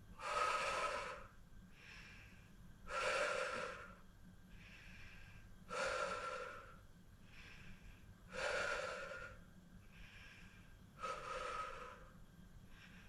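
A woman breathing hard with exertion during a bodyweight exercise, exhaling forcefully once per repetition: five strong exhales, each about a second long and roughly every two and a half to three seconds, with quieter inhales between.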